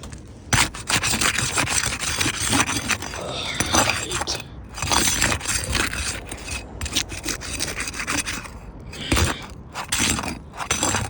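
Asphalt roof shingles being scraped and pried: a tool is worked under an old shingle to lift it for removal, in long rough scraping strokes with a couple of short pauses.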